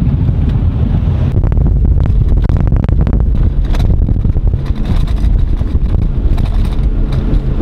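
A vehicle engine running steadily under way, with wind buffeting the microphone in gusts.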